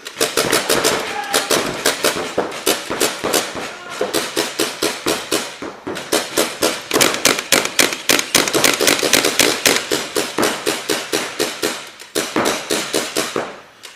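Paintball markers firing in a rapid, irregular crackle of shots, often several a second, with short lulls about six seconds in and near the end.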